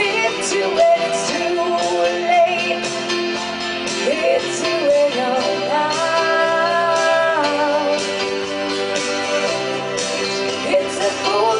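Live song: a woman singing a melody with sustained notes over a strummed acoustic guitar, with a keyboard synthesizer accompanying.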